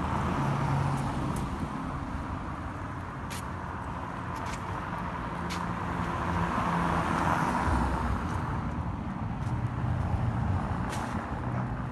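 Road traffic: cars passing on a paved street, their tyre and engine noise swelling about a second in and again around seven seconds, over a steady low rumble, with a few faint clicks.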